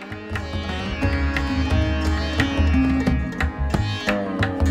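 Instrumental background music of plucked string notes over a steady drum beat, growing louder about a second in.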